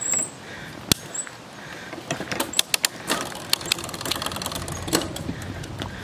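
Bicycle clicking and ticking: a single sharp click about a second in, then a quick, irregular run of clicks in the middle.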